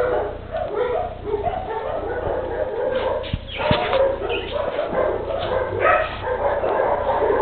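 A dog vocalizing in a long run of short yips and whimpers, one after another.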